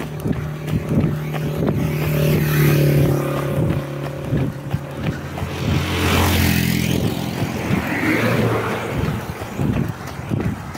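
A motor vehicle passes close by on the road: a steady engine hum that builds and fades, with a rush of road noise about six seconds in. Quick, regular footfalls of a runner on asphalt can be heard under it, clearest at the start and near the end.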